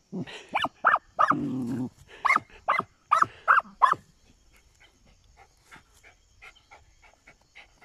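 Young dogs barking at an armadillo holed up in its burrow: a quick run of short, high yaps in the first half, then only faint scratching of paws digging in dry soil.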